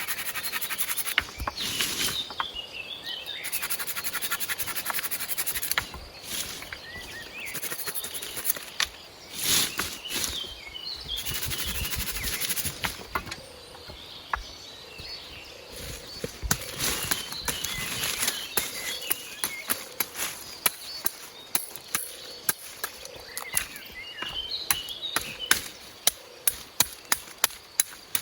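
Outdoor forest ambience with birds chirping in short falling phrases and a steady high buzz in stretches. Sharp taps come in an even run, about two or three a second, through the second half.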